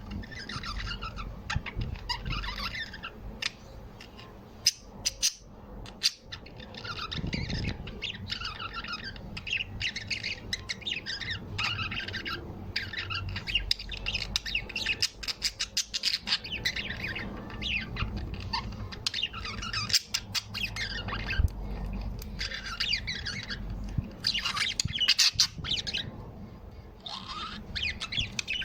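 A group of small birds chirping and squawking, with many rapid, overlapping calls and a few sharp clicks.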